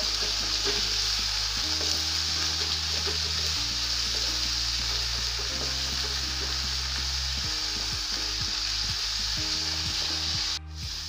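Diced potatoes and onions sizzling in hot mustard oil in a kadhai over a high flame, stirred now and then with a spatula. The sizzle cuts off abruptly near the end.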